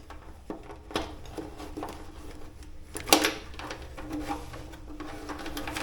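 A few small clicks and knocks of hands and tools working on a motorcycle's battery and wiring connections, the loudest about three seconds in, over a faint steady hum.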